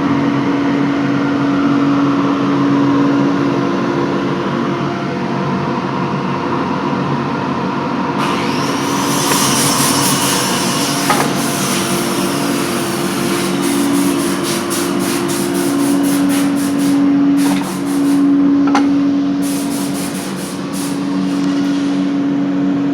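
Copy lathe for wood running with a steady motor hum while turning a baluster, with two stretches of rapid clattering cutting noise, about eight seconds in and again near the end.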